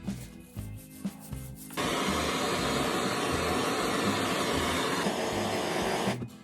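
Handheld Bernzomatic propane blowtorch flame burning with a steady hiss, starting about two seconds in and cutting off near the end, over background music.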